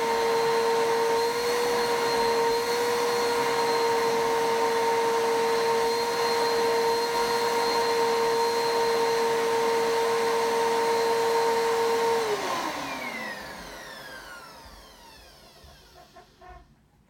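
Bissell vacuum cleaner motor running with a steady whine. About twelve seconds in it is switched off, and its pitch falls as the motor spins down over a few seconds.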